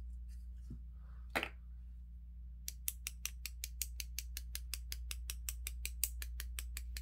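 A paintbrush tapped rapidly and evenly against the handle of a second brush, about six sharp taps a second starting a little under three seconds in, flicking white acrylic paint onto black paper as spattered stars. A single brief scrape about a second and a half in, over a low steady hum.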